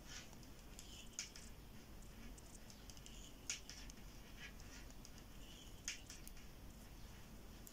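Metal knitting needles clicking and scraping faintly against each other as knit stitches are worked, a few sharp ticks over a quiet room hiss. The sharpest are about three and a half and six seconds in.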